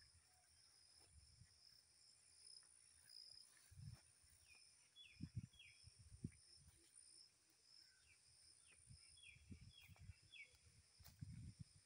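Faint rural ambience: a steady high insect drone, with a few short, falling bird chirps about halfway through and again near the end. Soft, irregular low thumps of footsteps on a dirt path.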